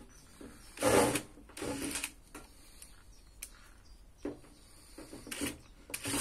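Cordless drill-driver running in short bursts as it drives Phillips screws into a sheet-metal appliance casing. The longest and loudest run is about a second in, another comes just before two seconds, and shorter ones follow near the end.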